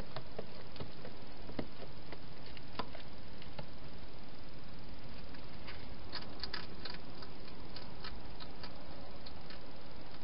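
Wild hedgehog eating from a bowl: scattered crisp clicks and crunches, thickest about six to nine seconds in, over a steady hiss.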